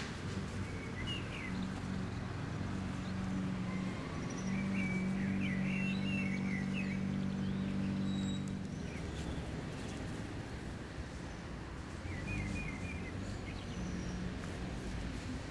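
Outdoor ambience: small birds chirping now and then, with short runs of chirps, over a steady low hum that swells for a few seconds in the middle.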